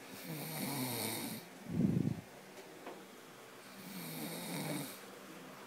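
A person snoring: two long snores about three and a half seconds apart, with a brief, louder low burst between them.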